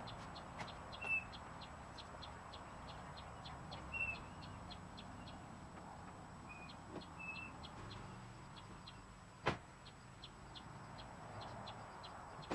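Birds giving short, high chirps every few seconds over a steady, faint, high ticking of about three a second. One sharp knock comes about nine and a half seconds in.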